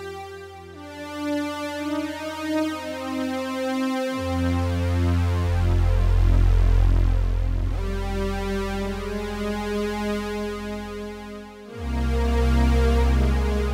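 Roland Juno-X synthesizer playing its Juno 106 model's CE-Drone preset: sustained, layered drone chords over a deep bass, changing every few seconds. The pitch slides down briefly at about four seconds and again near the end.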